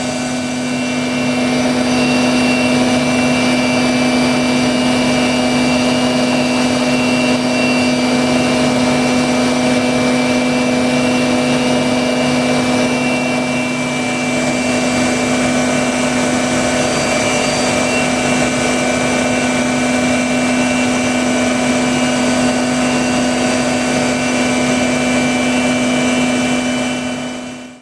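Okuma five-axis CNC machining centre running steadily while milling A5052 aluminium: a strong, even spindle hum with several steady higher tones over a broad rushing noise. It cuts off abruptly at the very end.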